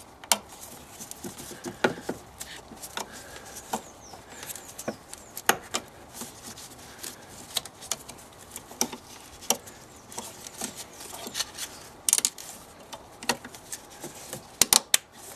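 Irregular small clicks and taps of a fuel line and its fitting being handled and pushed back into place on a 1.6 diesel engine, with a few sharper clicks close together near the end.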